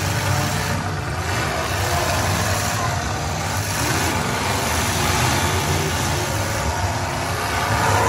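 Demolition derby cars' engines running and revving together as a steady low rumble, with crowd voices underneath.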